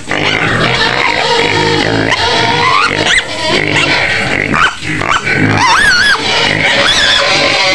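A pen of young white pigs squealing, loud throughout, with many high squeals rising and falling over one another.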